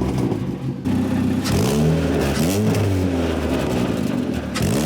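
Ford Fiesta Mk6's 1.6 Zetec S four-cylinder engine running through a newly fitted aftermarket cat-back race exhaust, idling and blipped up in revs a couple of times about halfway through, with another rev starting near the end. The exhaust note is loud.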